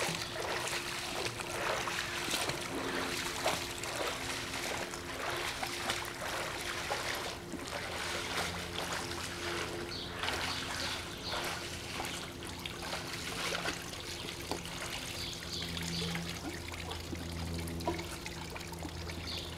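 Swimming-pool water trickling and lapping, with many small irregular splashes, over a faint steady low hum.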